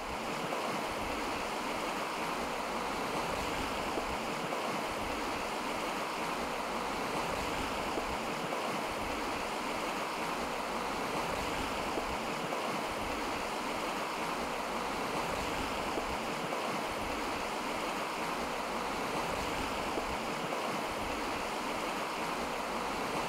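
Swollen River Esk in flood, its water rushing with a steady, even noise.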